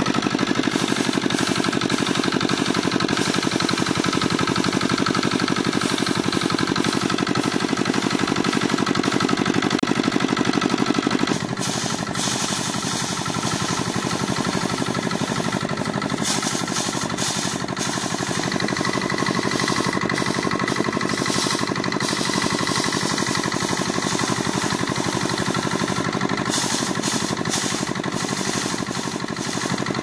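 Engine-driven wire-loop drum rice thresher running steadily, a fast even knocking rhythm from the engine and belt drive, with the rattle of rice sheaves being threshed against the spinning drum. The sound shifts slightly about eleven seconds in.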